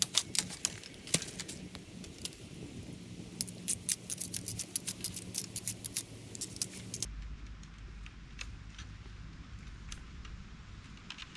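Runs of quick, sharp clicks and ticks, which stop abruptly about seven seconds in, leaving a faint hiss with a few scattered ticks.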